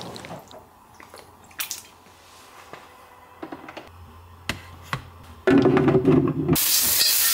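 A few faint taps and clicks, then about five and a half seconds in a brief loud low noise. A second later food starts sizzling loudly and steadily in hot oil.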